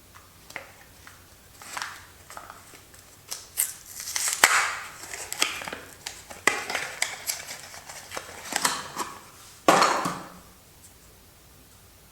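Soap packaging being handled and opened by hand: a run of paper and cardboard crinkles, rustles and sharp clicks, with a longer, louder rustle about ten seconds in.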